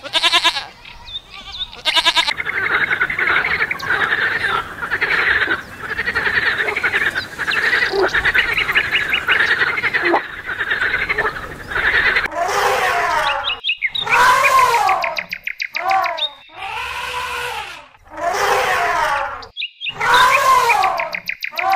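Frogs calling in chorus: many overlapping croaks for about twelve seconds, then a run of louder, drawn-out calls, each rising and falling in pitch, repeated about once a second with short gaps.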